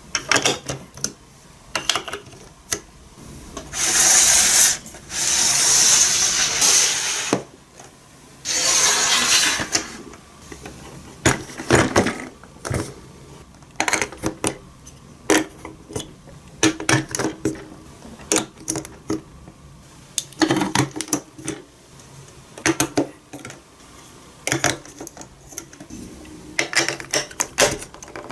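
Plastic building blocks and marble-run chute pieces being handled and pressed together by hand: scattered short clicks and clacks. In the first ten seconds there are two longer spells of rustling, rattling noise.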